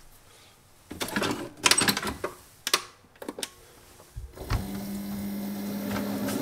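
A few scattered clicks and knocks, then about four seconds in a single-serve pod coffee maker starts a steady electric hum as its pump begins brewing into the mug.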